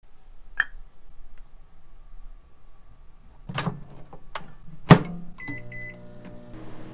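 Handling clunks, then a microwave oven door shut with a sharp knock. A few short keypad beeps follow, and the oven starts running with a steady low hum.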